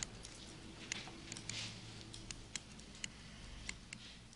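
Faint, irregular snips of a barber's scissors cutting hair.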